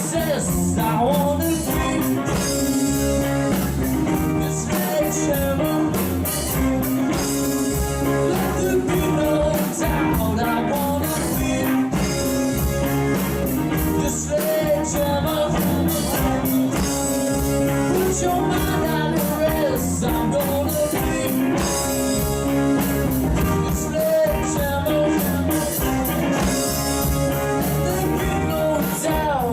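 Live band playing a rock song on electric bass, guitar and drum kit with a steady beat.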